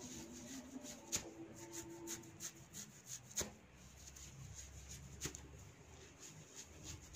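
Hair cracking: handfuls of hair tugged at the roots give sharp snapping cracks, three loud ones a couple of seconds apart and fainter ones between, with hands rustling through the hair.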